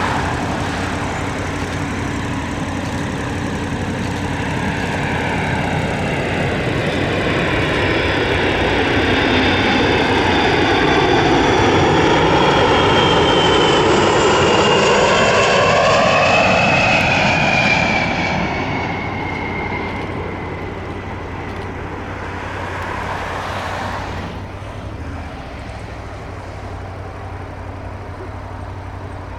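A fixed-wing aircraft passing by, its engine growing louder, then fading, with a high whine that falls in pitch as it goes past. A steady low hum runs underneath.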